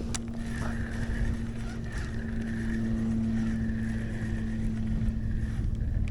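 Kayak pedal drive running steadily as the kayak moves along: a low, even hum with a higher, slightly wavering gear whine over it.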